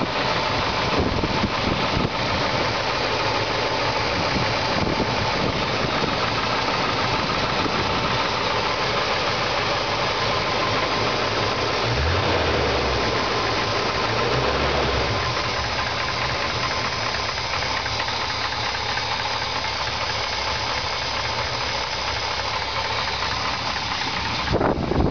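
1969 GMC C10's 350 small-block V8 running at idle through dual glasspack exhaust, with a knock coming from the engine that the owner cannot place and suspects is a bad bearing.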